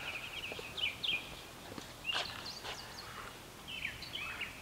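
Small birds chirping in the background, in several short bursts of quick high calls over faint outdoor ambience.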